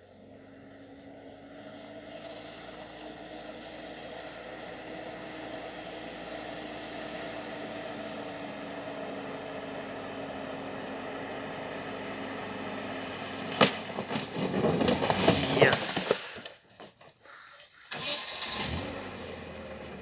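UAZ-3962 van's engine running steadily, growing louder as the van approaches and drives into a water-filled ford. About two-thirds of the way in, loud irregular bursts of noise cover it, and again shortly before the end.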